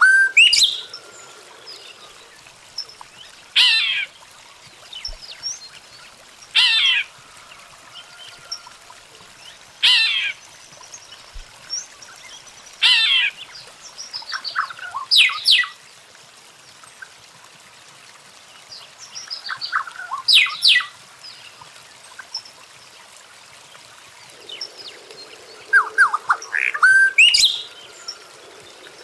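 A songbird singing short, loud phrases that repeat about every three seconds, with softer chirps in between.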